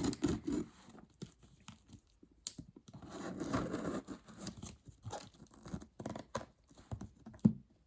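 Cardboard packaging of a cordless phone set being opened by hand: irregular tearing, crinkling and scraping with scattered clicks, busiest about three seconds in, and a sharp snap near the end.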